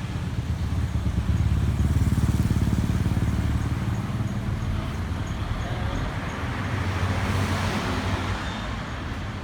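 A motor vehicle's engine running, with a low rumble that is loudest during the first few seconds, and a swell of road-like noise near the end.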